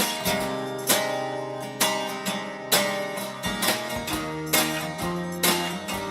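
Music with acoustic guitar strummed in chords about once a second, each chord ringing on until the next strum.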